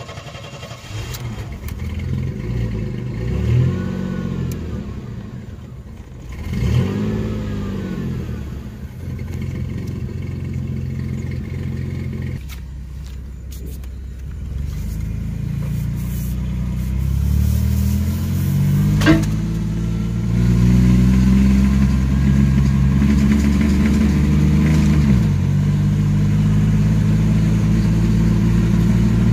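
A 1994 Chevrolet S10 Blazer's 4.3-litre V6 (CPI) with true dual exhaust and cherry bomb mufflers, running after sitting a couple of days and being revved. It gives two short blips early on, then a slower climb in revs that is held high for several seconds before dropping back to a steady run near the end, with one sharp click partway through.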